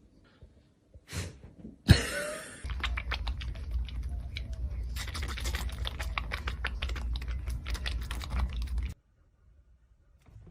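A sudden knock, then rapid, irregular clicking and tapping over a low rumble for about six seconds, cut off abruptly.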